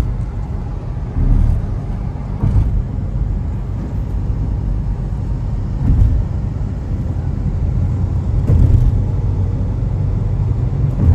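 Steady road and engine rumble heard inside a car's cabin travelling at expressway speed, with a few brief thumps.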